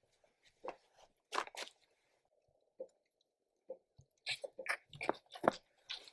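Bottle calf sucking milk from a nursing bottle: short, irregular slurps and gulps, sparse at first and coming thicker in the second half.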